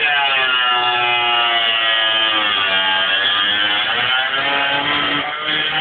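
Angle grinder's cut-off disc cutting through a BMW's sheet-steel rear body panel. Its motor whine sags in pitch as the disc is pushed into the metal and recovers, then dips again near the end.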